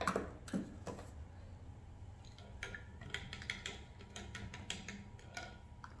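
Light, irregular clicks and taps of small plastic paint cups and paintbrushes being handled on a tabletop, with a quicker run of taps in the second half.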